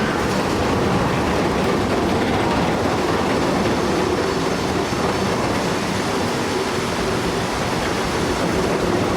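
Heavy haul truck running under load, a loud steady rumble of engine and rolling wheels with a faint constant hum.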